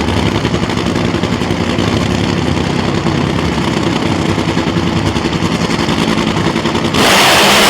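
A drag car's engine running loud with a pulsing, lumpy beat. About seven seconds in, the sound jumps suddenly to a much louder, harsher noise reaching high up.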